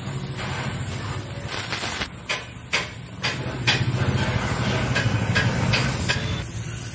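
Oxy-acetylene welding torch running with a steady hissing flame while a tack weld is laid on a mild-steel pipe joint. A run of sharp crackles from about a second and a half in to about six seconds in comes as the filler rod melts into the puddle and throws sparks.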